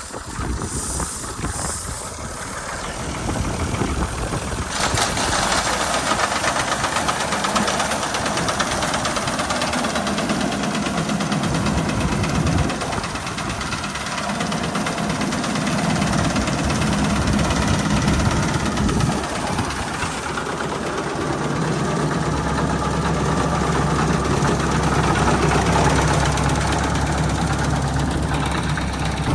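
Al-Ghazi 65 hp tractor's diesel engine running steadily, with a dense machinery hiss building in about five seconds in. A deeper, louder engine hum sets in about three quarters of the way through.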